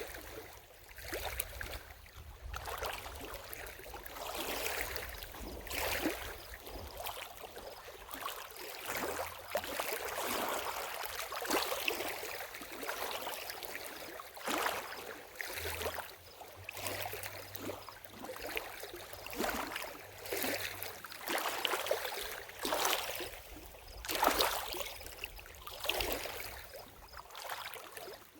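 Lake water lapping and splashing at the lake's edge, in small irregular surges about every one to two seconds.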